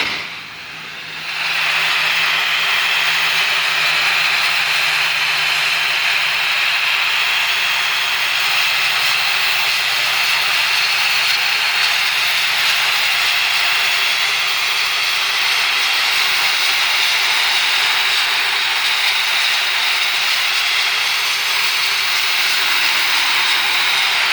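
Pressure washer's water jet spraying brick steps to strip algae: a loud, steady hiss that starts about a second and a half in and holds unchanged, with a faint low hum underneath.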